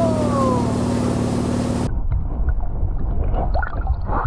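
Steady motorboat engine drone with wind and water rush, a brief falling tone near the start. About two seconds in it cuts off suddenly to muffled underwater sound: dull water rumble with small splashes and bubbles from a camera under the lake surface.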